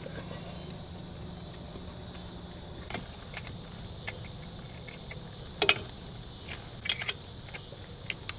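Light metallic clinks and jingles of tools and engine parts being handled under the hood, scattered irregularly, with one louder clink about two-thirds of the way through.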